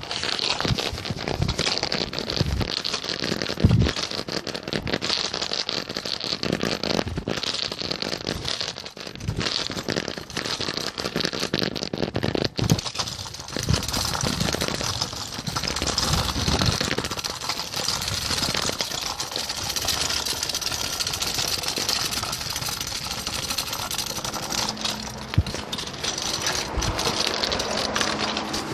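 Clothing rubbing and rustling against a covered phone microphone, with scattered knocks and crackles from handling. A steady low hum comes in under the rustle near the end.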